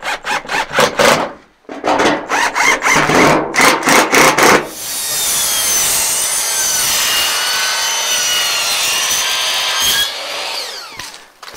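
A cordless drill drives screws through a panel into wooden siding in rapid pulses. About four and a half seconds in, a sliding compound miter saw runs steadily and cuts through wood for about five seconds, its blade whine falling as it winds down near the end.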